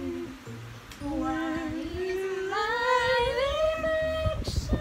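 A woman's voice singing one long note that slides upward in steps, holds near the top and breaks off near the end.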